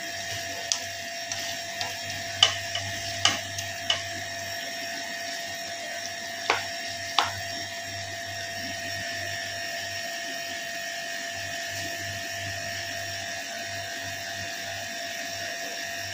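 Wooden spatula stirring chicken in a frying pan, with about seven sharp knocks of the spatula against the pan in the first seven seconds. Under it runs a steady, whining machine hum.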